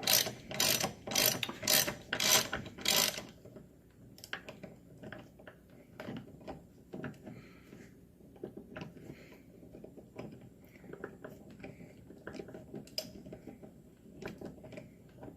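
Socket ratchet wrench with a 19 mm socket clicking as it is worked back and forth, turning a hinge pin push tool to press the pin out of a door hinge. There are loud bursts of ratchet clicking, about three a second, for the first three seconds, then softer, scattered clicks.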